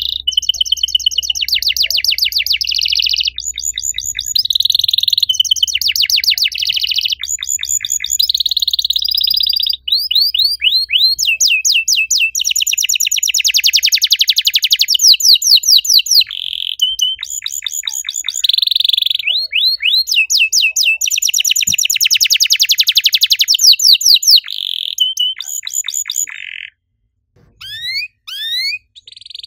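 Domestic canary singing a long, high-pitched song of fast trills and runs of rapid repeated chirps, hardly pausing. Near the end it breaks off briefly with a few single chirps, then starts again.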